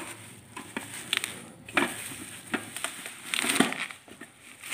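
The plastic body and lid of a portable sauna steam generator being handled and opened: scattered plastic clicks and knocks with bouts of crackling, the loudest a crackling stretch about three and a half seconds in.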